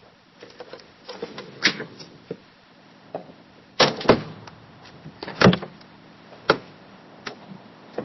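A window being opened and shut: a run of knocks and clunks, with a double clunk about four seconds in, the loudest knock about a second later, and lighter clicks after.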